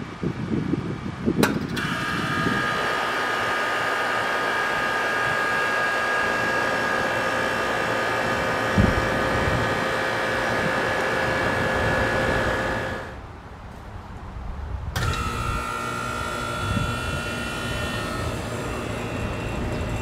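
Outdoor air conditioner condensing unit starting up: a sharp click about a second and a half in, then the compressor and condenser fan run with a steady hum and a few steady whining tones. About thirteen seconds in the sound drops away, and a Trane condensing unit starts with another click about fifteen seconds in and runs with its own steady hum.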